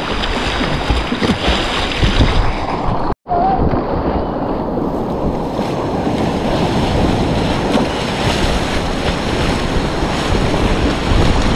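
Loud, steady rushing of whitewater river rapids, with wind buffeting the microphone. The sound cuts out for an instant a little after three seconds in, then carries on as before.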